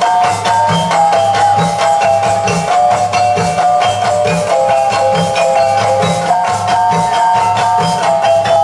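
Traditional Kalimantan dance music: a repeating melody of short pitched notes, like a mallet or plucked instrument, over a steady low beat, with rattle- and wood-block-like percussion.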